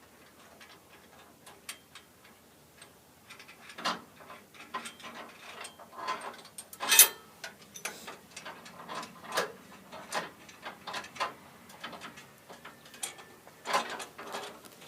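Irregular metallic clicks and knocks from scaffold parts being handled and unclipped, with one louder clank about seven seconds in.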